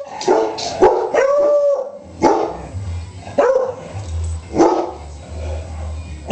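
Beagle barking repeatedly, about one bark a second, with one call about a second in drawn out into a short howl.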